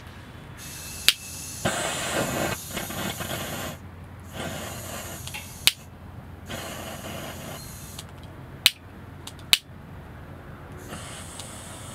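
Handheld gas torch lighter sparking with four sharp clicks and hissing in several bursts of a second or more, its flame preheating the vaporiser of a Takei burner kerosene pressure stove.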